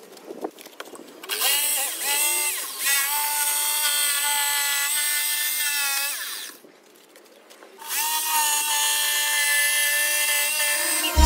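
Handheld power tool motor running in two runs of about five and three seconds with a short pause between. Its whine dips and recovers in pitch a few times near the start, as if loading up against the work.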